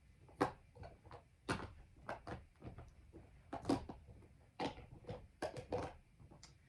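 Plastic slime containers clacking and knocking as they are picked up, moved and set down, a dozen or so irregular sharp knocks, the loudest about half a second in and near the four-second mark.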